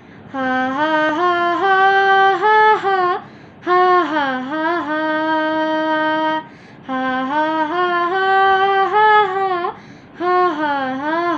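A boy singing a Nepali song solo and unaccompanied, in four long phrases with held notes and slides between them.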